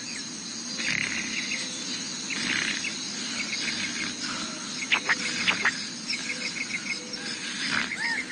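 Crickets chirping in short trains of quick, even pulses that repeat throughout, with a couple of sharper single chirps about halfway through, as a cartoon's nature ambience.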